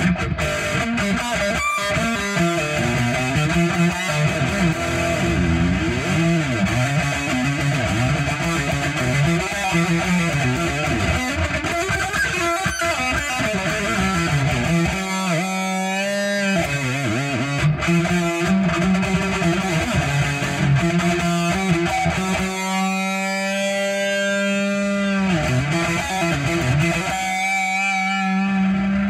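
Electric guitar playing a slow lead line of long, held notes that waver with vibrato, over a steady low note.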